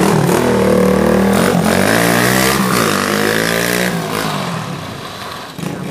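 125cc pit bike's single-cylinder four-stroke engine revving under way, its pitch rising and falling several times as the bike accelerates, then growing fainter over the last couple of seconds as it rides off.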